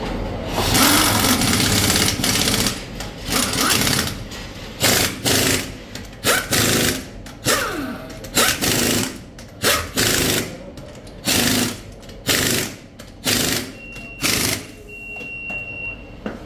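Pneumatic impact wrench in about a dozen short bursts, roughly one a second, the first one longer: wheel nuts being run on and tightened. Two high, steady beeps near the end.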